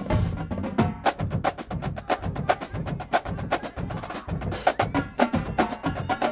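College marching drumline playing a fast percussion cadence: a dense run of sharp snare and tenor drum strokes over bass drums, several hits a second.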